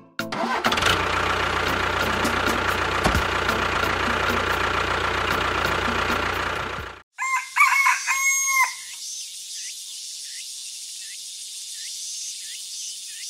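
A vehicle engine sound effect runs loud and steady for about seven seconds, then cuts off abruptly. A rooster crows once, followed by a soft wash of background with small bird chirps repeating about twice a second.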